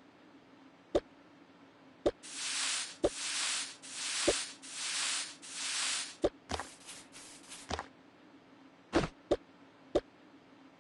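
Items being set down while restocking a fridge: sharp, light knocks about once a second, with two quick ones near the end. In the middle comes a run of five even hissing swells, then a shorter, broken hiss.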